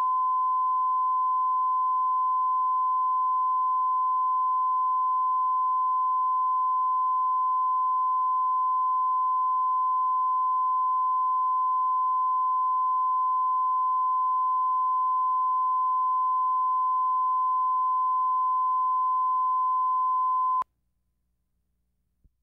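Steady line-up test tone that goes with colour bars, used as the reference level for setting audio: one pure, unchanging pitch. It cuts off abruptly near the end, leaving near silence.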